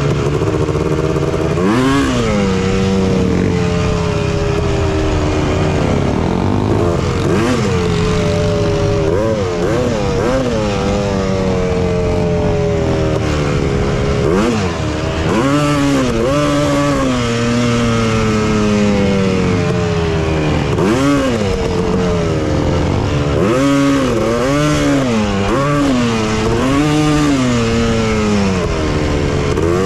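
Honda TRX250R's two-stroke single-cylinder engine riding along, revving up and dropping back repeatedly as it is throttled and shifted, with a few longer steady stretches and a quick run of revs in the last few seconds.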